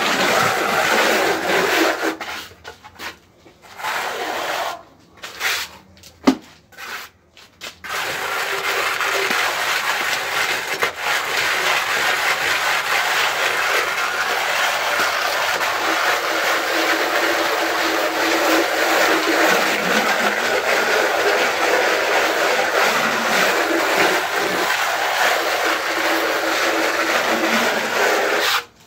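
Plastering float rubbing over freshly applied Reibeputz textured render on a wall, a continuous gritty scraping as the grain is worked into its texture. It stops and starts several times in the first eight seconds, then runs steadily.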